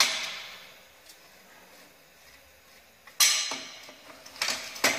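Metal clanks as a car's front suspension strut is set into a strut-spring compressor tool: one sharp clank at the start, another a little after three seconds, and a quick pair near the end, each ringing briefly.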